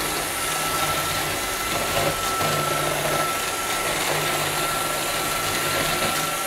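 Roomba robot vacuum cleaning, its motors running with a steady high whine over a hiss. A lower hum cuts in and out every second or so.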